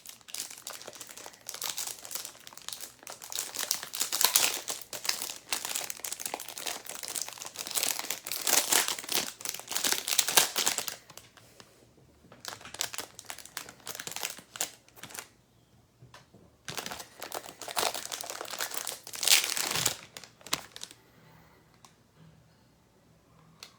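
Plastic wrapping on trading card packs and boxes crinkling as it is handled, in long bursts for about the first ten seconds, then shorter bursts, going quiet for the last few seconds.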